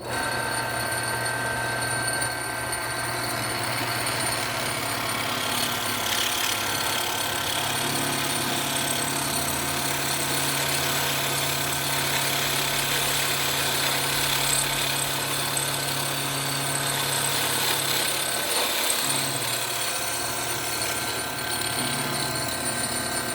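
Bench drill press running steadily with a long bit boring a hole, the motor's hum and the cutting noise holding even throughout, with slight shifts in pitch as the load changes.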